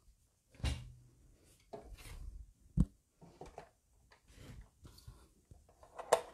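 A few knocks and scraping sounds as a Big Shot die-cutting machine and its clear acrylic cutting plates are fetched and handled, with the sharpest knock about three seconds in.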